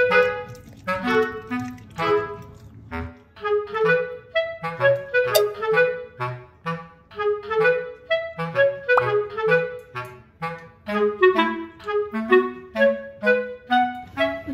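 Background music: a melody of short, separate notes over a bass line, at a steady bouncy pace.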